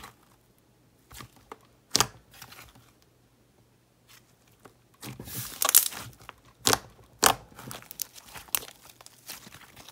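Thick slime being pressed and stretched by hand, giving sticky clicks and pops. There are a few separate snaps in the first seconds, a quiet spell, then a run of crackling about halfway through with three loud pops.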